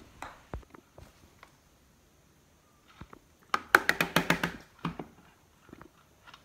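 Plastic containers being handled: a few scattered clicks, then, about three and a half seconds in, a quick run of sharp knocks with a short ring, lasting about a second.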